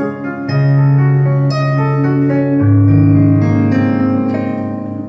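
Piano playing slow, sustained chords, struck about once a second, with the bass note stepping down twice.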